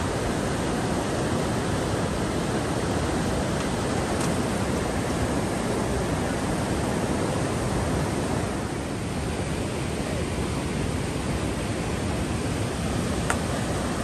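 Steady rush of a silt-grey mountain stream flowing over rocks, with one faint click near the end.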